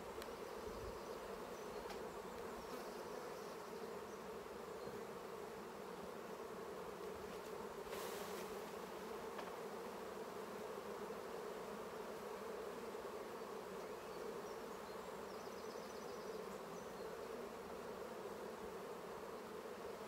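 Steady buzzing hum of a honeybee colony around an open hive, many bees flying and crawling on the frames.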